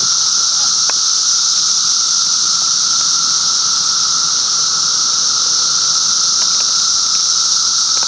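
Dense chorus of cicadas: a loud, steady, high-pitched drone with a lower steady whine underneath, holding without change.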